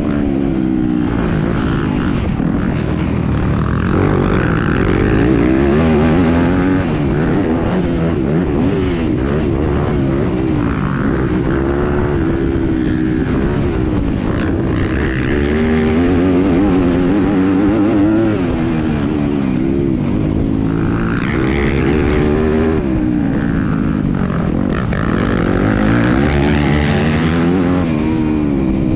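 Yamaha YZ250F's 250cc four-stroke single-cylinder engine heard from on the bike, revving up and dropping back over and over as the rider works the throttle and gears around a motocross track.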